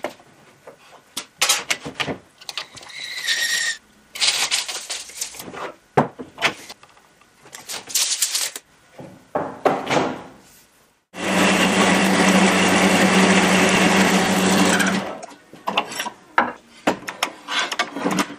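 Workshop work on a rotor blade's tube assembly: a run of short clatters, knocks and scrapes, then a power tool running steadily for about four seconds from a little past the middle, then more short knocks.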